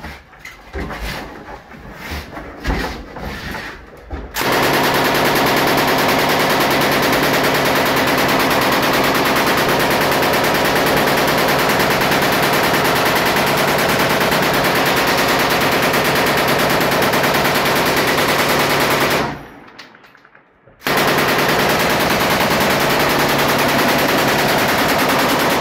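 M240 7.62 mm machine gun firing from inside a room in two long continuous bursts. The first starts about four seconds in and lasts roughly fifteen seconds; after a pause of about a second and a half, the second runs about five seconds.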